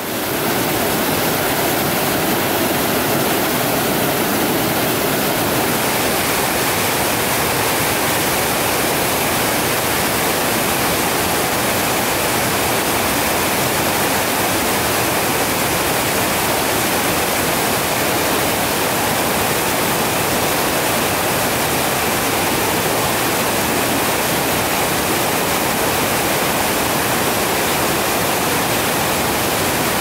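Waterfall on a rain-swollen mountain stream, water cascading over boulders with a steady, roaring rush.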